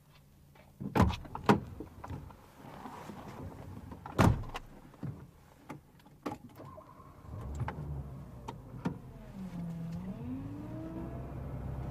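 Car door noises heard from inside the cabin: two sharp clicks near the start, a loud door slam about four seconds in, and a few small clicks as the driver settles. The engine then starts about seven and a half seconds in, revs with a rising pitch and runs on steadily.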